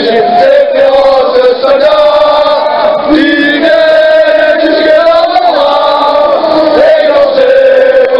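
A group of French football supporters, mostly men, singing a chant loudly together in unison, on long held notes that step up and down.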